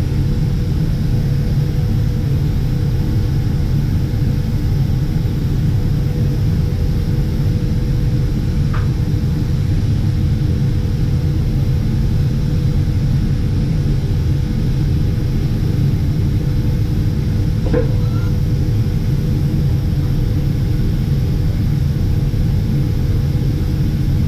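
Steady low machinery hum from a CHIRON FZ 08 FX MAGNUM machining centre running, with a faint steady tone over the rumble. Two brief faint high chirps come about a third and two thirds of the way through.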